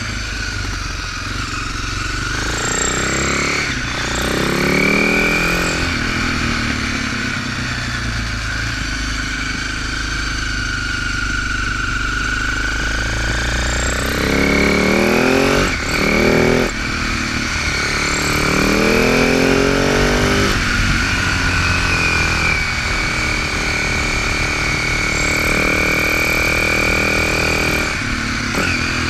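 Husaberg FS650's single-cylinder four-stroke engine under way on the road, its pitch climbing and dropping back several times as the bike accelerates and changes gear, with a brief drop in sound about halfway through.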